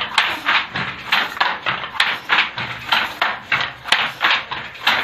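Wooden handloom weaving a silk sari, clacking in a quick steady rhythm of about three strokes a second, with a sharper knock now and then.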